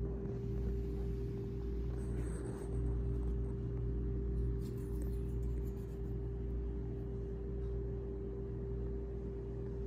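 A steady mechanical hum with one constant tone and a low rumble beneath it, with a few faint light clicks near the middle.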